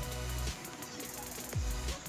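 Background electronic music with deep kick-drum beats over held tones.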